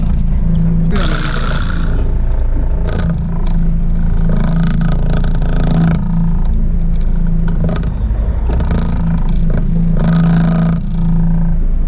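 Fishing boat's engine running steadily with a low, even drone. A short burst of hiss comes about a second in.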